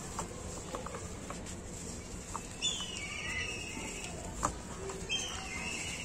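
Dry cement lumps crumbling in gloved hands, with soft crackles and small clicks as pieces break and powder and crumbs pour into a plastic bucket. Two short high chirping calls come in, about two and a half and five seconds in.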